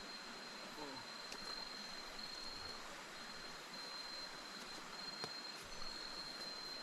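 Rainforest insect, likely a cricket, trilling at one steady high pitch over the even rush of a small river's flowing water, with a couple of faint clicks.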